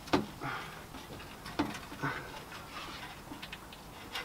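Car's front crash bar being wiggled by hand on its mounts: a few sharp knocks and light rattles, the loudest right at the start.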